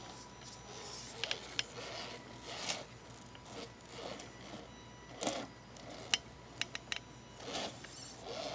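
Scale RC rock crawler working its way over boulders: irregular short scraping bursts and sharp clicks as its tyres and chassis grind and knock against the rock.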